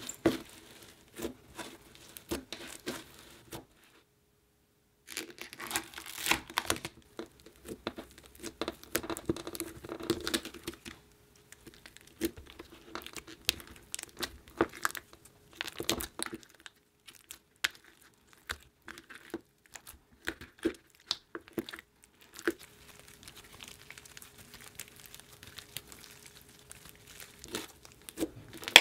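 Hands squishing, poking and kneading thick slime, giving irregular sticky crackles and small pops, with a brief silent break about four seconds in.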